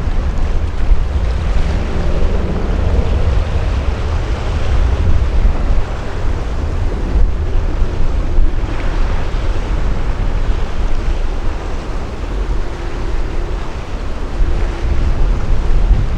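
Wind buffeting the microphone: a heavy, uneven low rumble with a steady rushing hiss over it.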